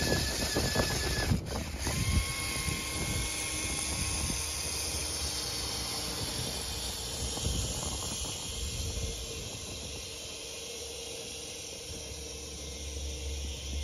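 Electric motors and gearing of a radio-controlled Tamiya Clodbuster monster truck whining steadily as it plows through deep snow, with a click about a second and a half in, after which the whine steps up in pitch. The whine grows quieter in the second half as the truck moves away.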